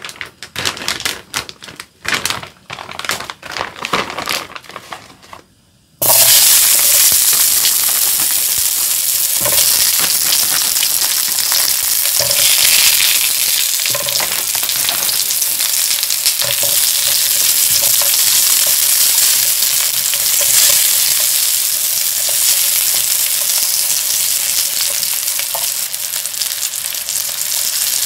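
Plastic bag crinkling and frozen dong-geurang-ttaeng (Korean meat patties) clattering into an empty frying pan, in separate clicks and rustles. About six seconds in, loud steady sizzling of the patties frying in oil starts suddenly, with occasional light taps of chopsticks turning them.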